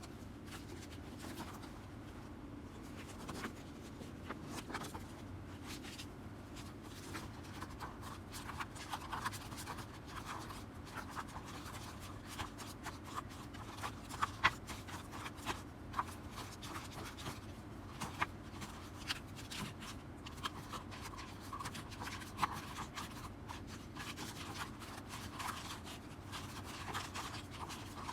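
Hands handling an album's paper and plastic contents: quiet, irregular rustling, sliding and small clicks, busiest in the middle stretch.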